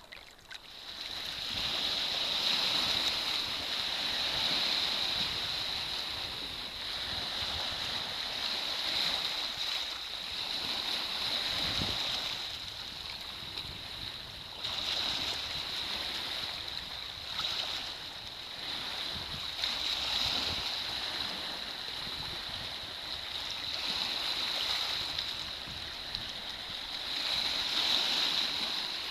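Small sea waves lapping and washing onto the beach: a steady hiss that swells and fades every few seconds.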